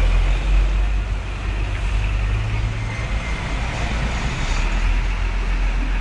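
Steady low rumble of road vehicles and traffic, with no siren sounding.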